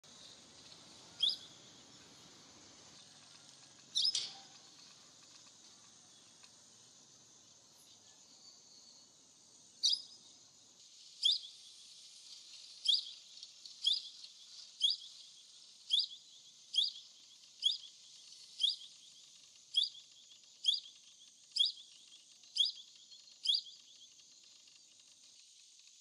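Plum-headed parakeet calling while perched: short, sharp, high-pitched calls, a few single ones at first, then from about ten seconds in a run of about a dozen evenly spaced calls, about one a second, stopping shortly before the end. A steady high hiss runs underneath.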